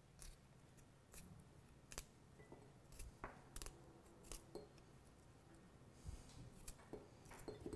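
Small paring knife cutting through raw garlic cloves held in the hand: faint, scattered clicks and snips, about one or two a second, with little else.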